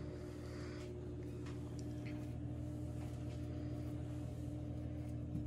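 Steady low hum with a fainter higher tone held over it, and a few faint soft taps as the dough rolls are set into a glass pan.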